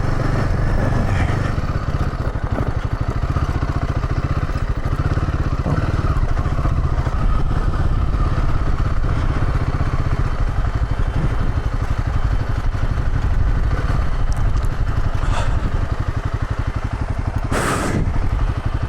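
Royal Enfield Himalayan 450's single-cylinder engine running steadily at low speed on a rough dirt track, with a short loud knock near the end.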